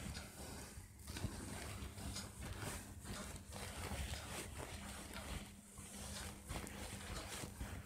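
Whiteboard duster rubbing across a whiteboard in repeated wiping strokes, a faint swishing scrape, over a steady low hum.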